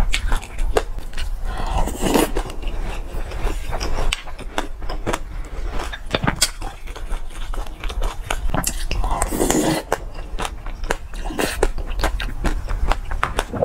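Close-up chewing and crunching of a mouthful of mixed black and white sesame seeds, many small sharp crunches, with a ceramic spoon scraping and clinking in a ceramic bowl.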